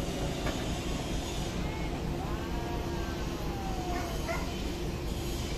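Diesel engine of a TCM wheel loader running steadily while its bucket is lowered. A few short high yelps sound over it in the middle.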